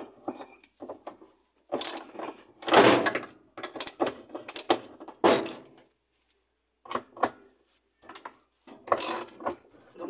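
Metal hand tools clinking and rattling in a series of irregular clanks, loudest about three seconds in, as a socket wrench is fitted to a washing-machine motor's mounting bolt.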